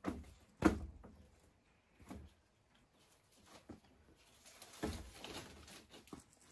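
Wooden knocks and thuds from boards being handled: two close together at the start, the second the loudest, single ones about two and three and a half seconds in, then a second or so of rustling and clattering near the end.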